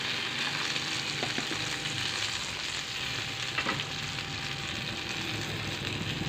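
Marinated chicken pieces sizzling steadily as they fry in a hot double-sided flip pan, with a couple of faint clicks about a second in and again past the middle.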